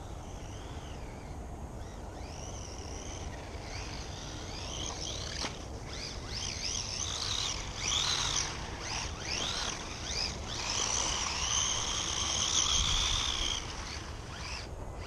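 Electric motor whine of a WLtoys A959-B 1:18 RC buggy, rising and falling in pitch again and again as the car speeds up and slows down, louder in the second half.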